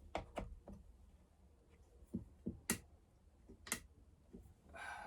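Scattered light clicks and taps of chainsaw handlebar and anti-vibration mount parts being handled during reassembly, about half a dozen spread out, the sharpest near the middle, with a brief rustle near the end.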